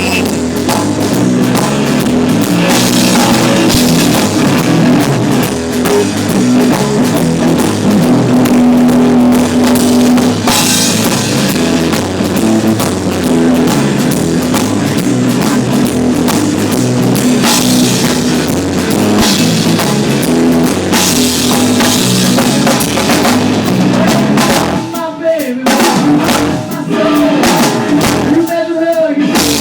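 Live rock band playing, with drum kit and guitar, loud and continuous; the band drops out briefly twice near the end.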